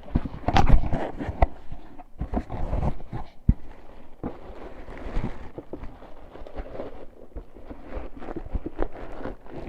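A delivery package being opened by hand: irregular rustling, crinkling and tearing of the packaging, with small knocks and scrapes as the contents are handled. The handling is busiest in the first second or so.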